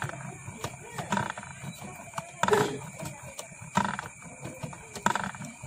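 Motor-driven coil winder turning a transformer bobbin as copper wire is fed onto it by hand: a steady low hum with a rasping pulse about every 1.3 seconds.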